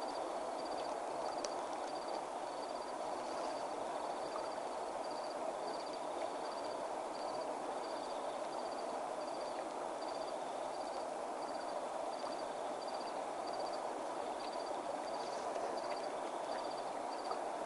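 Steady night-time hiss with an insect chirping over it, short high pulsed chirps about one and a half times a second, and a few faint clicks.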